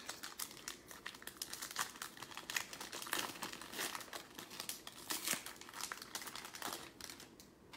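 Foil trading-card pack wrapper crinkling and being torn open by hand: a run of irregular crackles that dies away just before the end.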